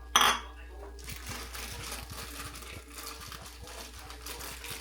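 A sharp clatter, then a continuous crinkling rustle, as of packaging being handled.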